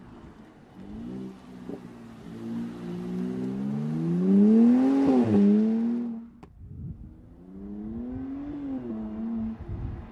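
Mercedes-AMG SLC43's twin-turbo V6 accelerating, its note climbing steadily in pitch to its loudest about five seconds in, then dropping suddenly. A single sharp crack comes about a second later, then the engine rises and falls again more briefly.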